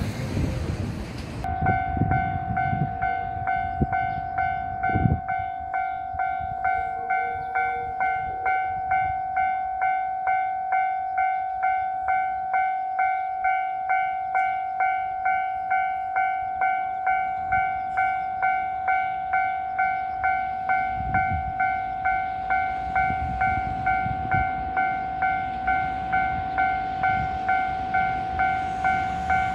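Japanese railway level-crossing alarm starting about a second and a half in and dinging evenly, about one and a half strikes a second, warning that a train is approaching.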